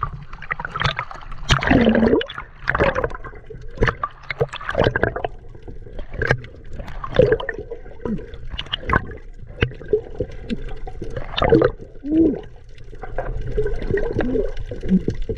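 Seawater sloshing and gurgling at the surface, then underwater bubbling with irregular pops and knocks.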